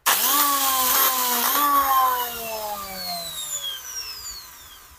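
Makita angle grinder switched on: its motor whine rises sharply as it spins up and picks up again briefly about a second and a half in. Then it is switched off and coasts down, the whine falling and fading over about three seconds. The grinder heats up quickly in use, and the repairer's first guess from the sound is a bearing.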